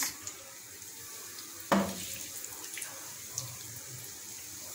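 Doughnut dough frying in hot oil in a pan: a steady sizzle with small crackles, and a sudden louder sizzle about two seconds in as another ring of dough goes into the oil.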